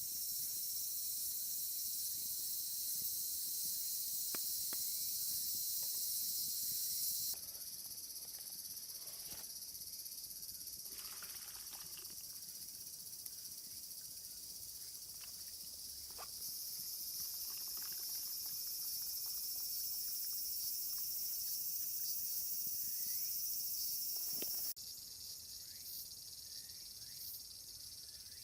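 A steady, high-pitched chorus of insects, dropping and rising abruptly in level several times, with a few faint knocks and chirps underneath.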